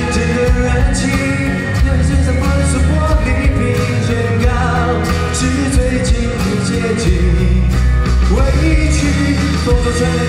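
A solo singer's voice through a PA system, singing a pop-rock song live over loud amplified instrumental accompaniment with bass and drums.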